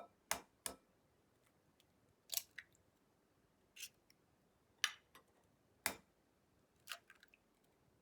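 A series of sharp clicks and taps, roughly one a second and often in close pairs, from hand work with kitchen tools.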